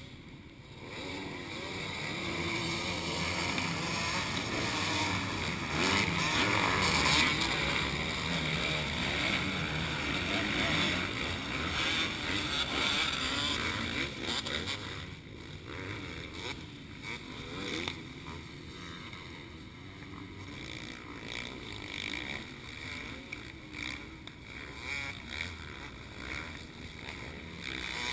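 Motocross bikes racing around the dirt track at a distance, engines revving and droning. The sound is louder for the first half and drops off about fifteen seconds in.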